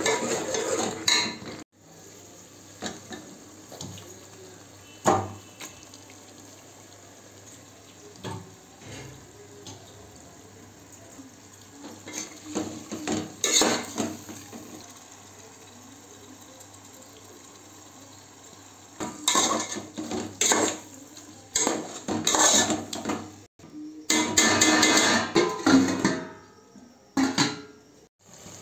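Metal ladle and slotted spoon scraping and clanking against an aluminium cooking pot while stirring thick curry masala and raw chicken pieces, in bursts of clatter with quieter stretches between.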